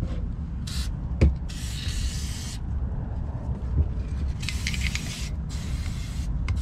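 Aerosol can of anti-corrosion lubricant spraying through its straw onto the metal parts of a jet ski engine bay, in four separate hissing bursts, the second the longest. A single knock about a second in, over a steady low rumble.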